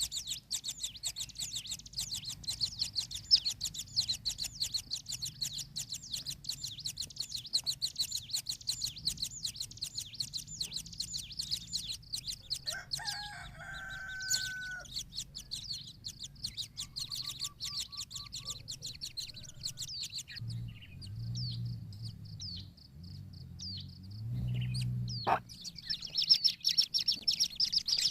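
Kingfisher nestlings begging: a rapid, continuous series of high chirps, many a second, that thins out about two-thirds of the way through and picks up again near the end. A brief lower, drawn-out call sounds about halfway through.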